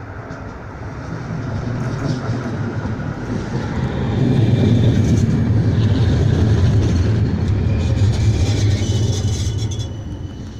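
CAF Urbos 3 tram passing on its rails, a low rumble that swells, holds loudest for several seconds, then fades near the end, with a faint high whine over it in the second half.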